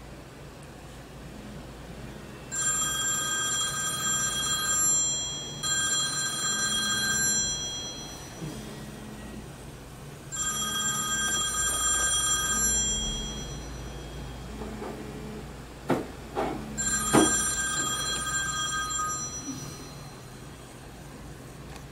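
Telephone ringing with an electronic ring: four rings of two to three seconds each, the first two close together. A couple of sharp clicks come shortly before the last ring.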